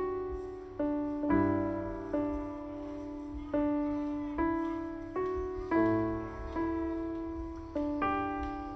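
Background music: a gentle solo piano piece, with chords and notes struck about once a second and each left to ring and fade.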